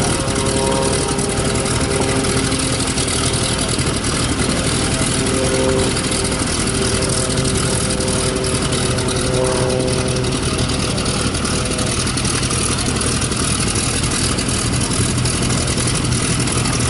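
Vintage biplane's engine running steadily on the ground.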